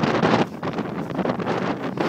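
Strong wind buffeting the microphone in uneven gusts, loudest at the start.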